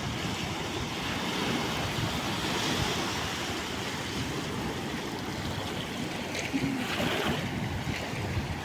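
Calm sea waves washing in, a steady rushing surf that swells a little twice, with wind rumbling on the microphone.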